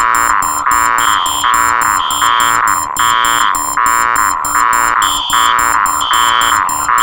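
Four electronic alarm sounds layered together and looping loudly. A cluster of tones repeats about once a second, a higher beep comes and goes every second or so, and a rapid, high-pitched pipping runs over the top.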